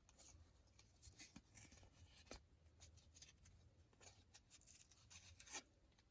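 Faint, scattered crinkling and rustling of a trading card pack's wrapper and cards being handled.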